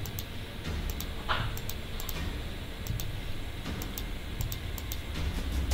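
Scattered clicks of a computer mouse and keyboard, often in quick pairs, over a steady low hum.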